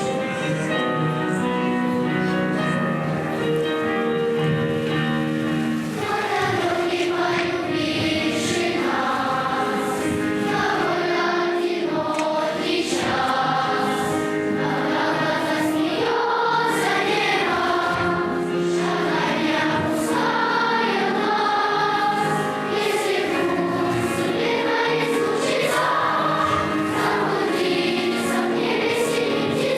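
A choir singing a song over instrumental accompaniment. The first few seconds hold only the instrumental introduction, and the voices come in about six seconds in.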